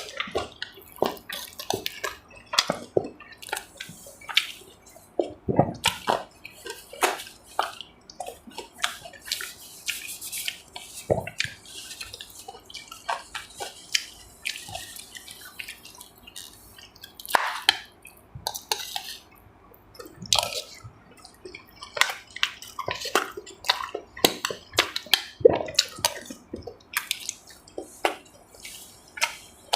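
Close-up eating sounds at a meal of braised catfish and clam soup: wet chewing and mouth smacks come as many short, irregular clicks, with no pauses.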